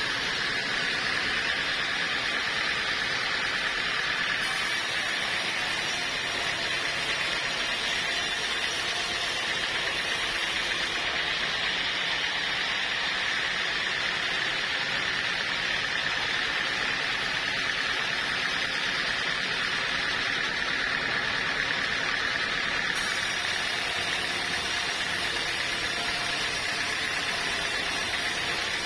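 Sawmill saw running steadily through the whole stretch, a continuous hiss with a steady high tone and no breaks.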